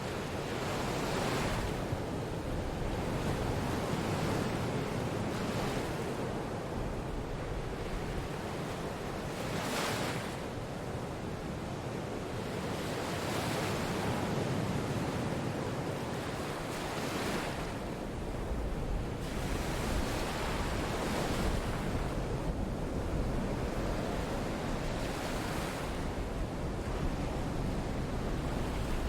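Rushing water ambience, a steady wash that swells and eases every few seconds, with a deeper rumble building in the second half.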